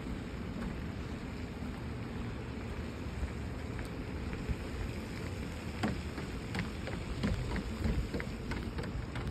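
Steady wind rumble and hiss on the microphone while walking outdoors. From about halfway there are several light taps, footsteps on the wooden decking.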